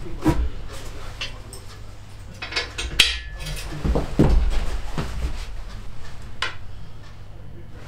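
Metallic clinks and clunks as a Fiat 500 engine block on an engine stand is turned over and handled. A sharp, ringing clink comes about three seconds in, heavier clunks follow around four seconds, and a lighter click comes later.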